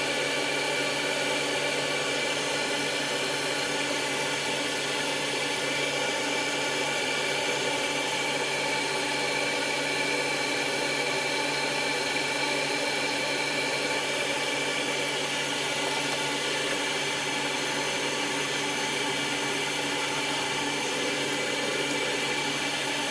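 Kotto solder fume extractor's fan running steadily at full speed, pretty loud: an even rush of air with a steady high whine and a low hum under it.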